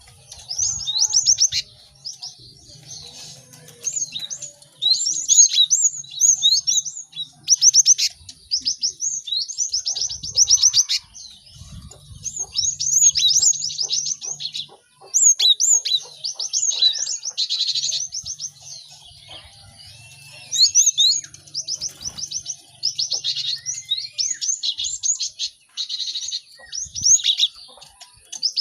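Cinereous tits (gelatik batu) calling busily, several at once: rapid runs of high, sharp chirps in bursts of a second or two, one after another with only short pauses.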